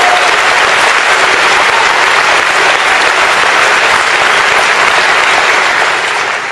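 Large audience applauding steadily, dying away near the end.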